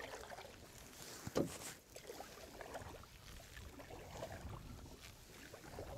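Quiet sounds of a canoe sitting on the river: faint knocks and water movement, with one short, louder knock about a second and a half in.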